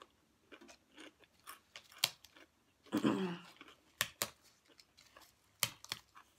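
A person chewing food close to the microphone, with a few sharp, crisp crunches.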